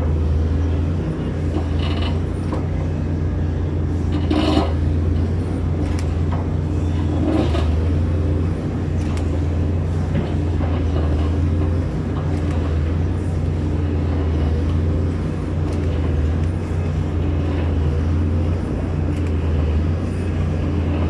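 Steady low drone of the hydraulic machinery running a Giken Silent Piler, a press-in sheet pile driver, with a few brief sharper sounds, near two, four and a half and seven and a half seconds in.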